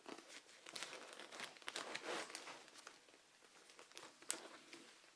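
Faint crinkling and rustling of comic books being handled and shuffled through. It is dense for the first couple of seconds, then thins to scattered ticks with one sharper click near the end.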